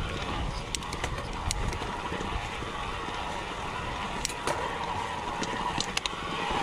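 Mountain bike riding over a gravel track: steady tyre rolling noise with scattered sharp clicks and rattles from stones and the bike.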